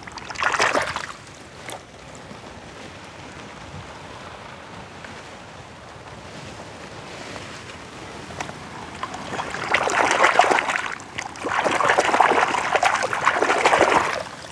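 A hand splashing and swishing in shallow muddy water while rinsing a mud-caked toy car. There is a short splash about half a second in, then two longer bouts of vigorous splashing from about ten seconds in until near the end.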